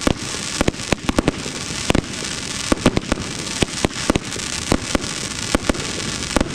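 Aerial fireworks display: shells bursting with sharp bangs, about two or three a second, over a continuous crackle.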